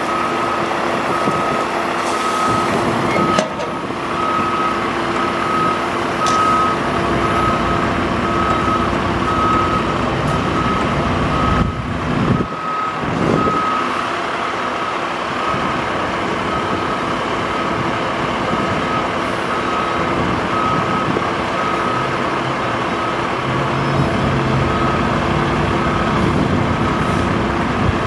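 International DT466 diesel engine running and driving the hydraulics of an Altec aerial bucket boom as the boom moves, with a steady hum. An alarm beeps at an even pace, a little over once a second, throughout.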